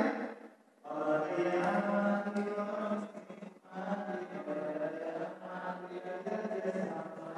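Voices chanting a devotional song in long held lines, with a brief break about half a second in and another at about three and a half seconds.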